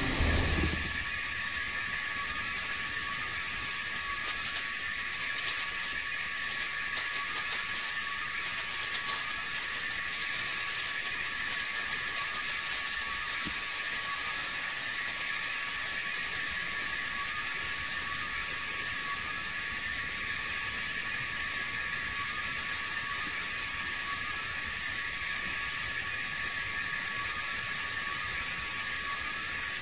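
Japanese incense sparkler (senko hanabi) fizzing with a steady high hiss and fine crackling as it throws sparks; the crackle is densest from about four to ten seconds in.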